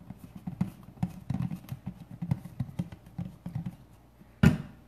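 Irregular soft taps and clicks as white school glue is worked out of a plastic measuring cup into a bowl of shaving cream, then one sharp knock about four and a half seconds in.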